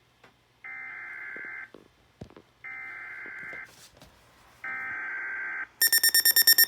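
Weather radio's EAS/SAME digital header: three one-second bursts of warbling data tones, evenly spaced a second apart, the third a little louder. Near the end a loud, rapidly pulsing electronic alert tone starts.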